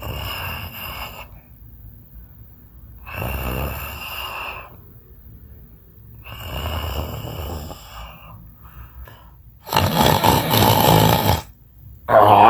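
A person snoring in sleep: four snores about three seconds apart, the fourth the loudest, with another just starting near the end.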